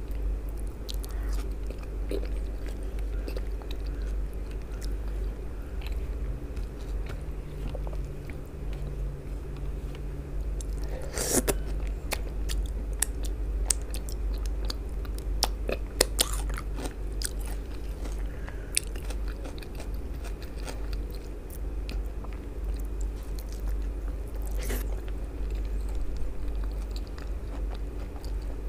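Close-miked chewing of soft, wet food (a bitten tomato slice and eggplant pizza), full of wet mouth clicks and smacks. A few sharper bites stand out around the middle, and a low steady hum runs underneath.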